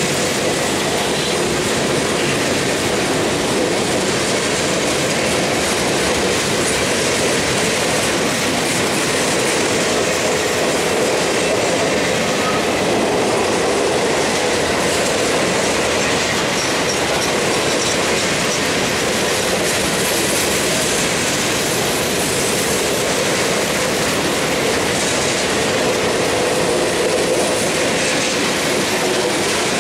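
Freight train cars, mostly boxcars, rolling past close by: a steady, loud rumble of steel wheels on the rails that holds unbroken throughout.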